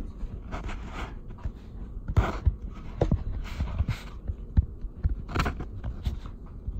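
Glass chess pieces knocking and sliding on a wooden chessboard as they are picked up and set down, a few sharp clicks among low thumps and rustling from hands.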